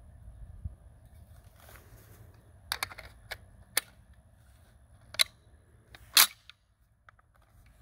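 Metal clicks and clacks of a 1944 Inland M1 carbine being handled: the magazine seated in the magazine well and the action worked. It is a series of short, sharp clicks, with the loudest clack about six seconds in.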